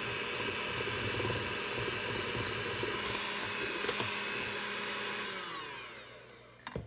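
Electric hand mixer running steadily, its beaters whisking thick crepe batter in a stainless steel bowl. About five seconds in it is switched off and winds down with falling pitch, followed by a short knock near the end.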